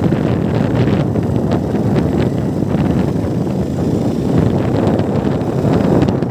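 Wind buffeting the microphone of a camera carried on a moving motorcycle: a loud, steady rush with the bike's running noise beneath it.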